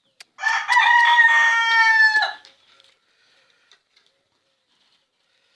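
A rooster crowing once, a single long call of about two seconds starting about half a second in, its pitch held steady and dropping slightly before it cuts off.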